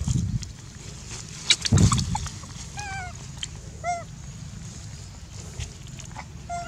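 Macaques giving short, wavering, pitched calls, three or four of them spaced through the second half. Near the start and again about a second and a half in there are heavier thumps and rustles against the microphone, which are the loudest sounds.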